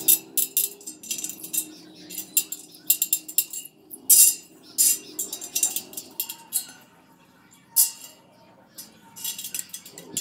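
Steel bicycle spokes and spoke nipples clinking against each other and the rim as a wheel is laced by hand: irregular, light metallic clicks and ticks.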